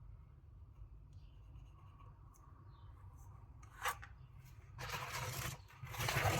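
Rubbing noises in three short bursts: a brief one a little past halfway, then two longer ones of about a second each near the end.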